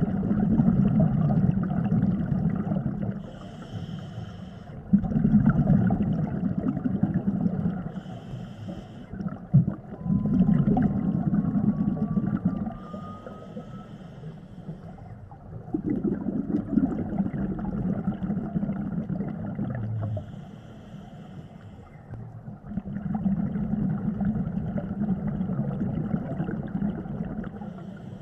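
Scuba diver breathing through a regulator underwater: a short hiss on each inhale, then a longer, louder bubbling rush of exhaled air. This repeats about five times.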